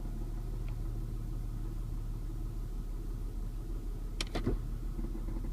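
2006 Saturn Vue engine idling steadily with a low hum and a rattle. The rattle goes away as soon as a little throttle is given, so it is present only at idle. A couple of short sharp clicks come about four seconds in.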